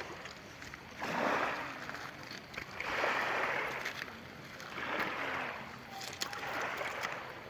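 Sea waves breaking and washing on the shore in four swells, one about every two seconds.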